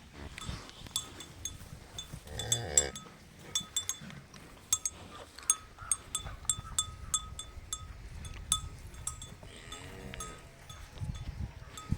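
A bell on cattle clinking over and over, a bright ring at the same pitch each time, as the animal moves. Two short animal calls come through, about two and a half seconds in and again near ten seconds.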